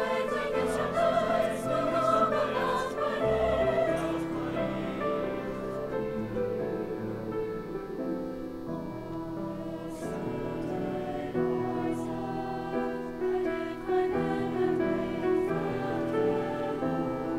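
A mixed choir singing a classical choral piece in sustained, slowly changing chords.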